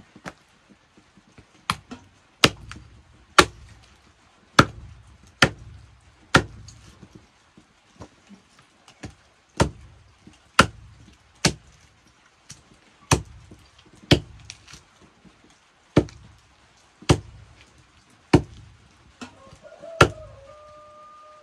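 A heavy curved knife chopping chicken meat and bone on a wooden log chopping block. About twenty sharp chops at an uneven pace of roughly one a second, each with a dull thud from the block.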